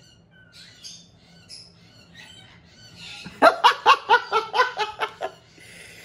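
A bird squawking: faint short chirps at first, then a quick series of loud squawks about three and a half seconds in, lasting nearly two seconds.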